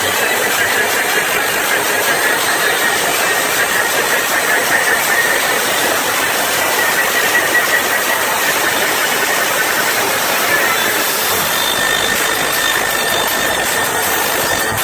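Large crowd cheering and screaming in one loud, steady roar.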